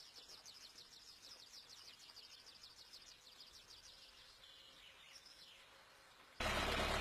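Faint outdoor quiet filled with insects chirping in a rapid, regular trill, with a bird calling now and then. Near the end it cuts abruptly to a much louder sound.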